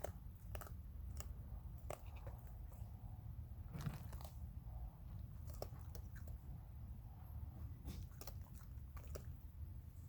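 Raccoons crunching and chewing hard dry food: irregular short crunches, a few a second, over a steady low rumble.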